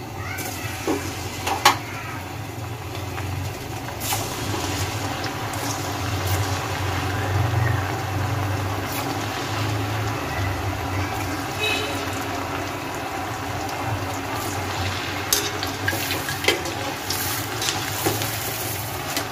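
Gulab jamun dough balls deep-frying in hot oil in a karahi: a steady bubbling sizzle that builds over the first few seconds, with a few sharp clicks now and then.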